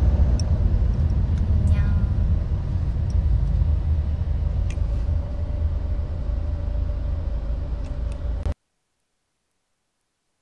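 Low, steady rumble of a car heard from inside the cabin, with a few faint clicks. It cuts off suddenly about eight and a half seconds in.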